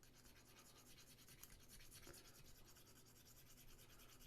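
Near silence, with faint, rapid scratching as a resin model part is lightly scuffed by hand.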